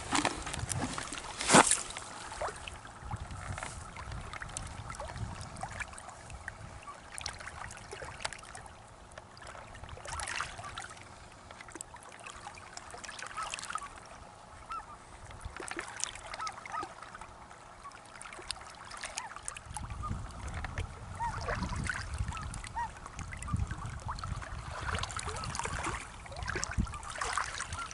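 Small waves lapping and trickling among shoreline rocks, with a sharp clack of stone on stone about a second and a half in. Short bird calls come here and there.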